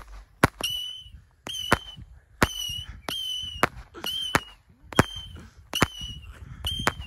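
Whistling firework cake firing shot after shot: each shot is a sharp report followed by a short high whistle, about ten in quick succession at roughly one to two a second, over a low rumble.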